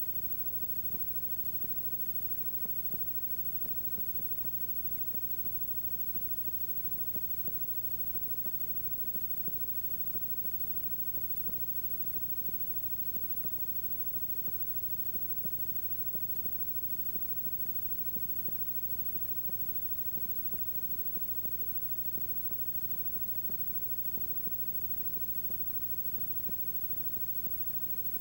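Steady electrical hum and tape hiss with faint clicks every second or so, and no game sound: the noise floor of a copied videotape whose audio track holds no program sound.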